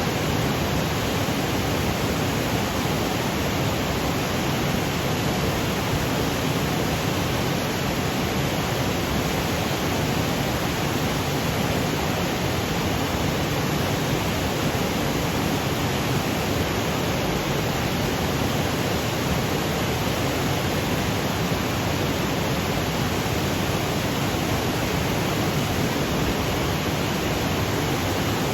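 Waterfall cascading over granite boulders: a steady, unbroken rush of water.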